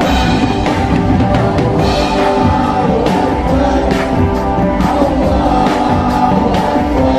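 Live band with guitar, drums and a singer at a microphone performing a religious song, with a steady drum beat.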